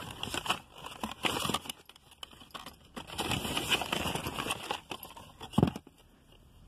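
Rustling and scraping of a small cardboard perfume box and its packaging being handled as the bottle is taken out, in two stretches, with a sharp knock about five and a half seconds in.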